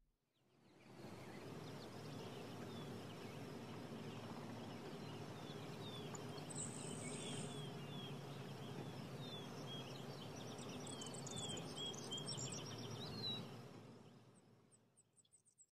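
Faint nature ambience: birds chirping in short, repeated falling notes over a steady background hiss. It fades in just after the start and fades out about a second before the end.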